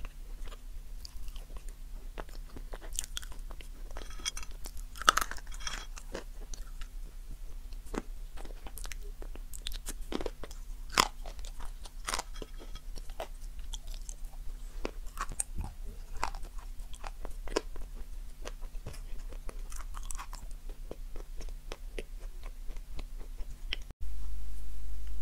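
Close-up chewing and crunching of crisp, crumbly food, with many short sharp crackles and bites over a faint steady low hum. Near the end the sound cuts abruptly to a louder steady low hum.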